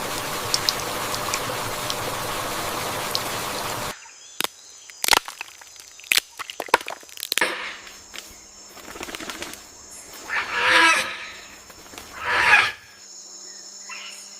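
A steady rushing background with faint bird chirps, cutting off suddenly about four seconds in; then scattered sharp clicks and wing flutters, and two loud, harsh bird calls near the end.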